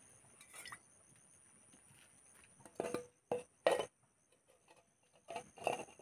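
A few short knocks and clinks of hard objects being handled among stones, three close together about three seconds in and another cluster near the end.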